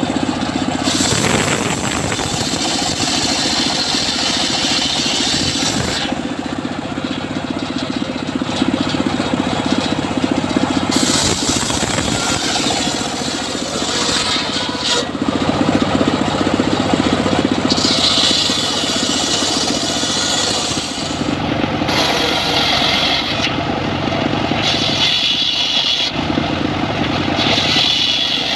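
Engine-driven homemade circular saw running steadily as its large blade rips teak logs lengthwise. A loud cutting hiss rises over the engine with each pass of the wood and drops back between cuts, several times over.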